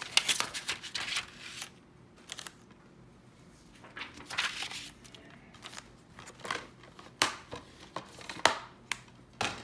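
Handling of a plastic DVD keep case and its paper insert: the paper rustles, and the case gives a few sharp plastic clicks as it is closed and pressed shut near the end.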